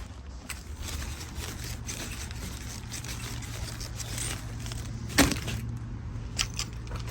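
Steady low rumble of a car on the move, heard from inside, with scattered light clicks and one sharper knock about five seconds in.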